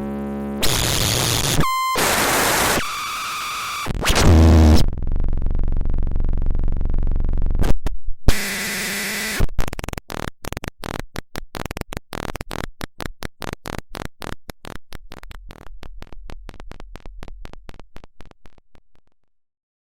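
Chaotic electronic noise: abrupt, shifting blocks of static hiss, buzzes and a brief steady beep. About halfway through it breaks into a stuttering run of clicks that grows sparser and quieter, then stops shortly before the end.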